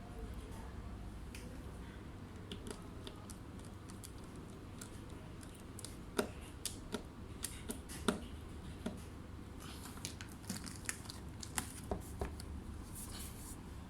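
Scattered light clicks and taps from handling a laptop, over a low steady hum.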